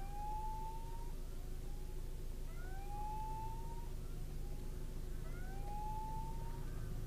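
Railway level-crossing warning signal sounding a rising electronic tone that repeats about every two and a half seconds, over the steady low hum of an idling engine.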